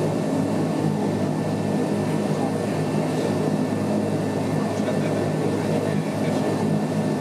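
Steady drone of a Bombardier Dash 8-100's turboprop engine and propeller running on the ground, heard from inside the cabin beside the wing.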